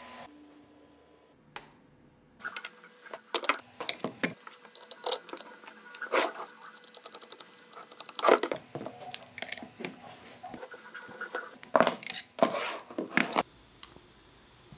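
Hands fitting a 3D-printed plastic clip onto a nail gun: a string of irregular clicks, knocks and scrapes of plastic against the tool's metal and plastic body, loudest about eight and twelve seconds in.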